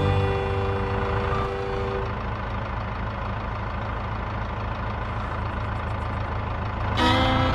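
Steady low engine-like rumble, as of an idling truck, in a break in fiddle music that fades out over the first two seconds and returns near the end.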